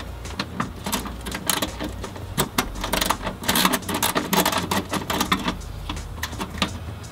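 Hand socket ratchet clicking in quick runs as a bolt is worked, with small metallic ticks and clinks of the tool against the bracket.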